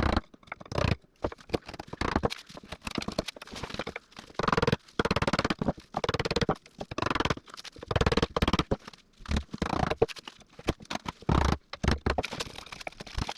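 Hand tools cutting a half-lap joint in an oak beam: irregular bursts of quick knocks and strokes on the wood, broken by short pauses.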